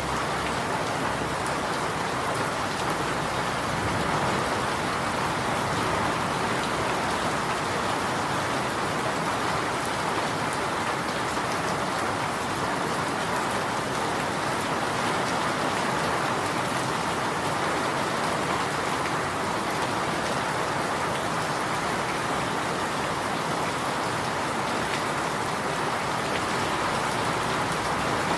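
Steady rain falling and pattering on surfaces, an even hiss with fine drop ticks that stays level throughout.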